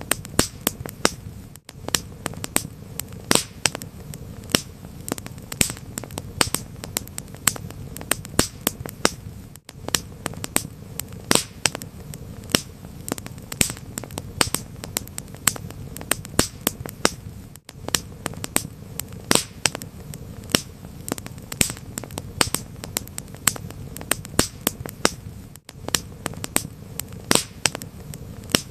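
Wood fire in a fireplace crackling: frequent sharp pops and snaps over a steady low rumble of burning. Brief dropouts come about every eight seconds.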